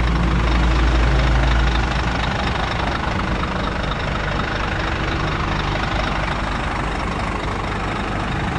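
Scania P380 dump truck's diesel engine idling with a steady low rumble, a little louder for the first second or two.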